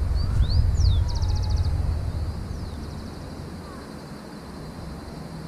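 Wind buffeting the microphone, easing off after about two seconds, with birds calling over it: quick up-and-down whistles and a rapid trill, the trill repeated more faintly about two seconds later.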